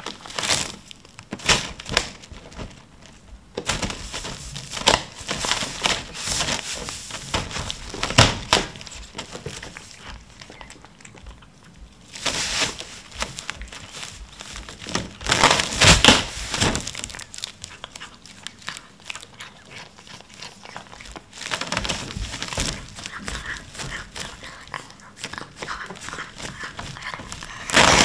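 Clear plastic cling film crinkling and crackling as a cat pushes and claws its way through the stretched sheet, in irregular bursts, the loudest a little past halfway.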